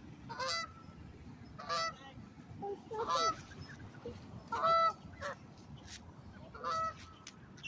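Canada geese honking: about six short, nasal honks spaced a second or so apart, the loudest a little before five seconds in.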